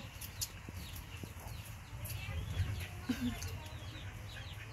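Chickens clucking and chirping in short scattered calls over a low steady hum.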